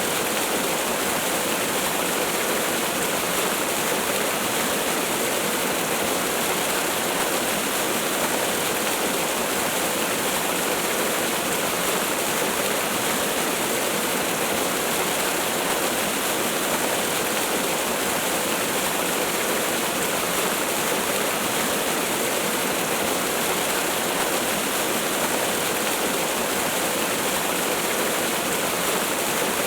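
Waterfall: falling water rushing in a steady, unchanging hiss with little deep rumble.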